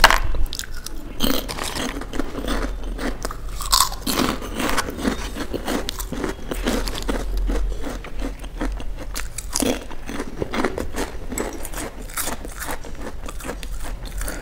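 Crunching and chewing of crispy fried snack chips, a rapid run of sharp cracks as the chips are bitten and broken up in the mouth.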